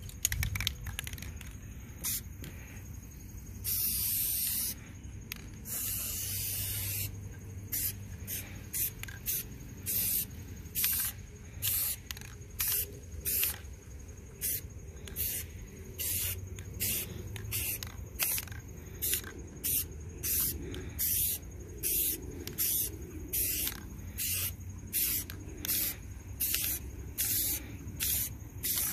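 Aerosol spray paint can spraying: two longer sprays of about a second each near four and six seconds in, then a run of short hissing bursts about one a second.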